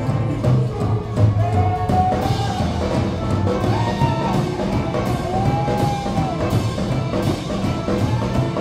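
Live rockabilly band playing an instrumental stretch: drum kit, upright double bass and guitars, with a lead line holding and bending a few long notes.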